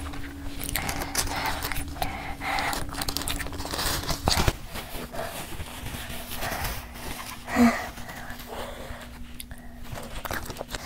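A woman panting and huffing through her mouth against the burn of extremely spicy sauce, with a tissue rustling at her lips. A sharp click comes about four seconds in and a louder breath or cough near the end.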